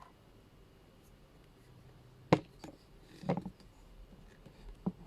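Small handling noises: a sharp click about two seconds in, a softer click just after, a short rustle with light knocks a second later, and another click near the end, over quiet room tone.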